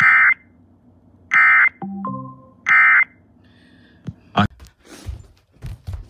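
Three short EAS end-of-message data bursts (the 'NNNN' tones), each a harsh buzzy screech about a third of a second long, spaced about a second and a half apart. They come through a smart speaker's radio stream and mark the end of an Amber Alert broadcast. In the last two seconds there are handling clicks and rustling.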